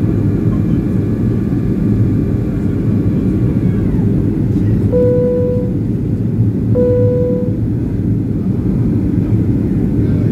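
Steady cabin noise inside a Boeing 737-300/500 in descent, a deep rush of airflow and engine noise. A faint high whine falls in pitch and fades about four seconds in. Two identical short electronic chime tones sound about two seconds apart near the middle.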